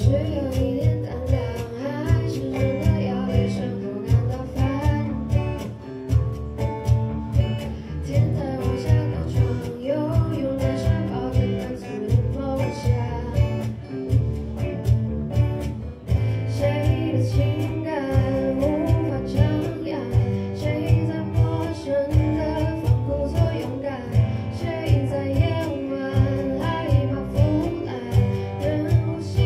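Live band playing a song: a girl sings into a microphone over electric and acoustic guitars, with a percussion beat keeping steady time.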